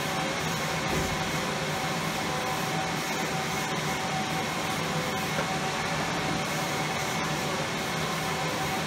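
HP L280 wide-format latex printer running mid-print: a steady whir of fans and drive with a few constant hums.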